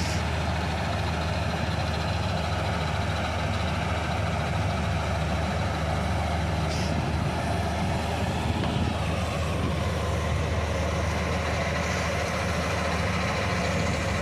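Combine harvester's diesel engine running steadily, a constant low drone with machinery noise over it.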